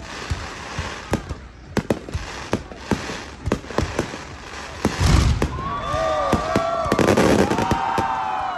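Fireworks display: a run of sharp cracks and bangs, a heavy boom about five seconds in, then several drawn-out whistling tones sounding together over the crackle.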